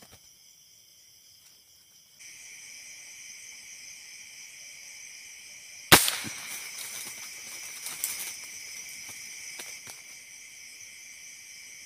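A single shot from a Tauros A2K dual-propellant airgun about six seconds in: one sharp crack with a brief ring after it, followed about two seconds later by a few faint clicks. Crickets chirp steadily from about two seconds in.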